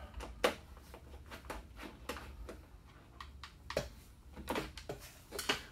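Scattered light clicks and knocks of a motorcycle's factory tail light being worked loose and pulled out of its mount by hand.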